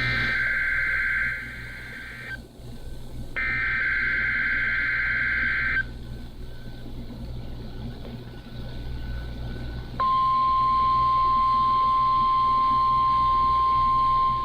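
NOAA Weather Radio Emergency Alert System test: two buzzing bursts of SAME header data, each a couple of seconds long, then about ten seconds in the steady single-pitch weather radio warning alarm tone starts and holds.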